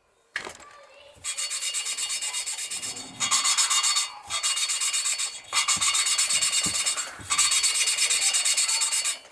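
A stainless valve being hand-lapped into its seat in a Yamaha XS650 cylinder head with lapping paste: a gritty, fast back-and-forth rasping in stretches of one to two seconds, with short pauses between. A single knock comes just before the first stretch.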